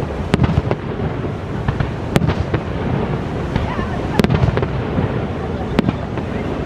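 Aerial firework shells bursting: several sharp bangs a second or two apart, over a steady low rumbling background.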